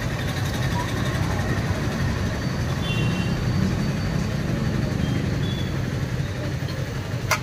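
Small fish frying in a kadai of hot oil, sizzling steadily over a steady low rumble of street traffic. Two sharp clicks near the end.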